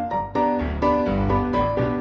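Background music: a bright melodic tune with notes changing several times a second over a steady bass line.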